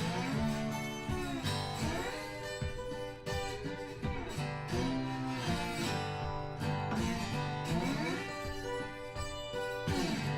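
Background music: plucked acoustic guitar playing a melody, in a country style.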